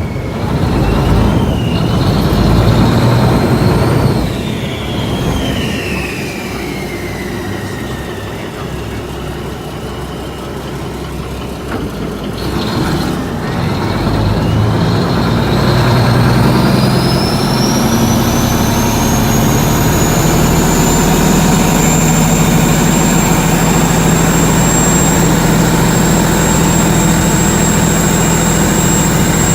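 Canal boat's diesel engine running loud: it eases off with a falling whine a few seconds in, then picks up again around the middle with a rising whine that settles into a high, steady pitch as the boat gets under way at speed.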